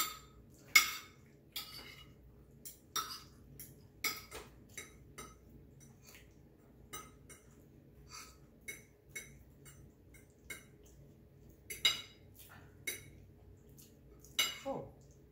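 Metal spoon and fork clinking and scraping on a dinner plate while gathering and twirling fettuccine: irregular sharp clinks, some ringing briefly.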